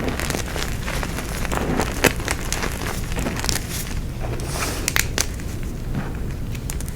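Blocks of gym chalk being crushed, a continuous crunching and crackling with irregular sharp snaps, the loudest about two seconds in and again about five seconds in.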